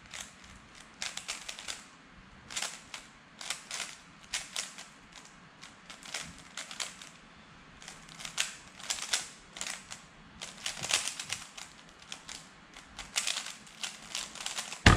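3x3 speedcube being turned fast, its layers clicking and clacking in quick bursts with short pauses between them. A loud slap comes right at the end as the hands come down on the speed-cubing timer to stop the solve.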